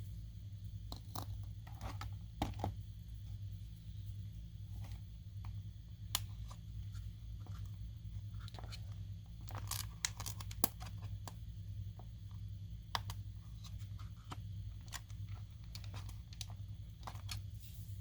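Scattered small clicks, taps and light crinkles of hands working on a small plastic model car and its sticker sheet, over a steady low hum.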